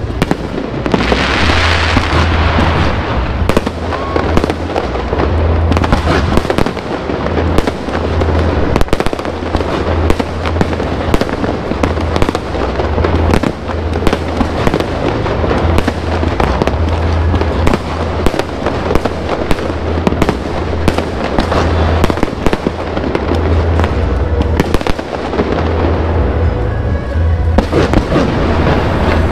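Fireworks display bursting in a dense, continuous run of overlapping bangs and crackles, with a hissing rush about a second in.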